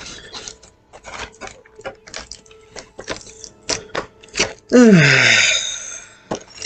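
Plastic and cardboard toy packaging being handled: a string of short clicks and crackles. About five seconds in comes the loudest sound, lasting about a second and falling in pitch, with a hiss over it.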